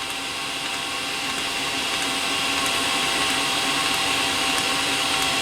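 Eberspacher D1L diesel heater running during a start attempt: its combustion-air fan whirring steadily, growing a little louder over the seconds. The heater has not yet properly lit and is smoking from the exhaust.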